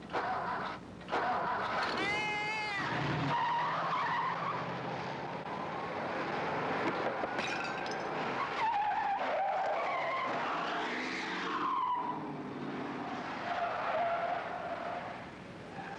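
Car sounds from a television soundtrack: a vehicle running, with a short, high arching wail about two seconds in and more sliding pitches later.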